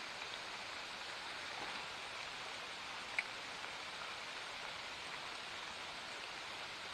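Steady rain falling, an even hiss, with a single sharp click about three seconds in.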